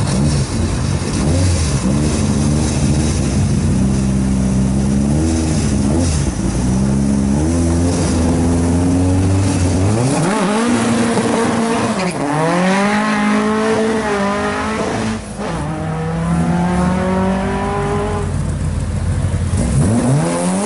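Classic Ford Escort engines running and revving as the cars pull out onto the road: a steady low engine note for the first half, then about halfway through several sharp rises and falls in pitch as the throttle is blipped, with another rev rising at the very end.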